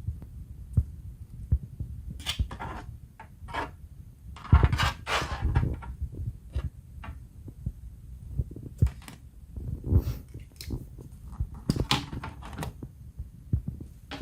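Irregular clicks, knocks and scraping of hands and a tool working on a laptop's plastic bottom casing, with a longer stretch of scraping about halfway through.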